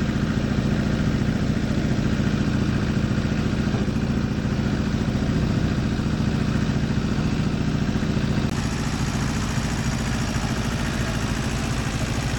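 Hinomoto E14D compact tractor's diesel engine running at a steady idle with an even, fast chugging pulse.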